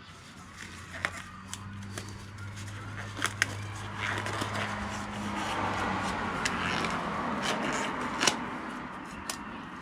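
Protective gloves being pulled on for epoxy work: crackly rustling of the glove material with several sharp snaps and clicks, busiest in the middle and latter part, over a steady low hum.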